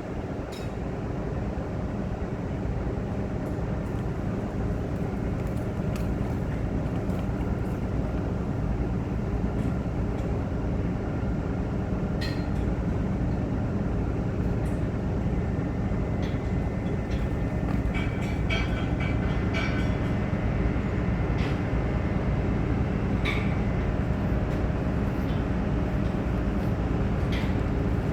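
Boat engine running steadily with a low drone, with a few faint clicks and knocks over it.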